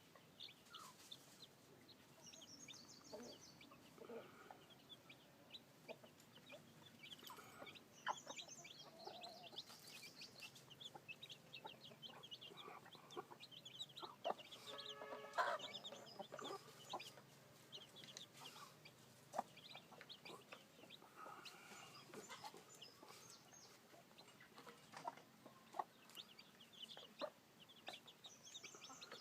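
A flock of newly hatched chicks peeping: many short, high cheeps overlapping one another, with a few lower clucks mixed in, all fairly faint.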